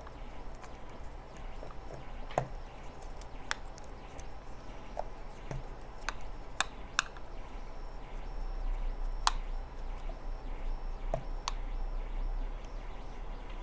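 Scattered sharp clicks and taps of small parts and tools being handled during hands-on repair work, over a steady low hum.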